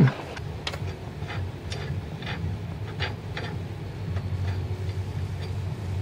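Light, irregular metallic clicks, about one or two a second, from a wrench working the lock nuts on the bolts of a home-made pipe subframe connector as it is tightened up, over a low steady hum.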